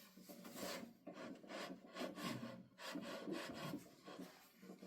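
Wooden board sliding and rubbing against the bandsaw table and circle-cutting jig as it is positioned on the pivot pin. There are several faint scraping strokes, and the saw is not running.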